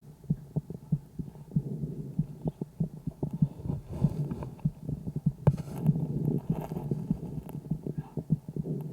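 Calf chest sounds picked up through a homemade stethoscope microphone on the left side, on the sixth day of illness: breath sounds swelling and fading, crossed by many short, sharp clicks and thuds. Lung ultrasound in this calf found lesions only in the right lung.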